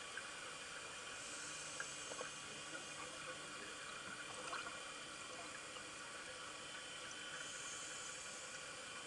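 Underwater ambience on a scuba dive, with a faint steady hiss and scattered small clicks. Twice, about six seconds apart, comes a brief rush of bubbling hiss, like a diver's exhaled air leaving the regulator.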